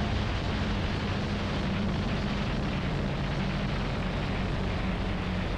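Citabria 7KCAB's four-cylinder Lycoming engine and propeller running in a steady drone as the plane rolls across a grass airstrip.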